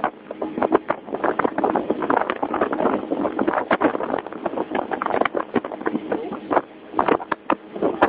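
A boat under way at sea: wind buffeting the microphone and water splashing at the hull in rapid, irregular gusts, over a steady engine drone.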